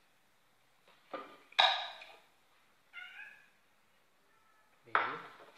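A cat meowing several times in short, bending calls. About a second and a half in there is a sharp knock, the loudest sound.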